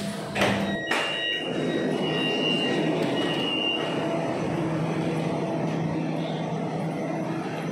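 Two sharp knocks, then a few high beeps of the door-closing warning as a Kajang Line MRT train pulls out of the station, its running noise swelling and a low steady motor hum holding through the rest.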